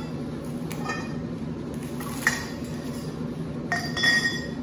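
Metal roll-cage tubes clinking and knocking against each other as they are handled, about four separate strikes, each ringing briefly with a metallic tone. The loudest strike comes near the end.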